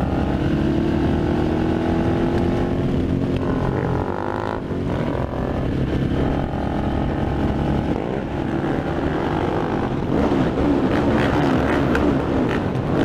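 Several supermoto motorcycles riding in a group, their engines revving up and down as they accelerate; the revving grows stronger about ten seconds in.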